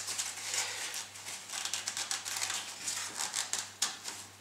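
Foamboard and depron parts of a model jet rubbing and creaking against each other as a tight-fitting nose section is worked into the fuselage by hand: a run of small, irregular crackles and scrapes, with one sharper click near the end.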